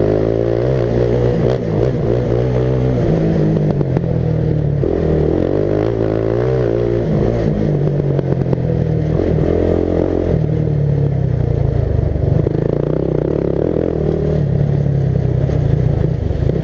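Racing lawn mower's engine running hard, its pitch climbing and dropping again and again as the throttle is lifted and reopened through the bends, heard close up from the driver's seat.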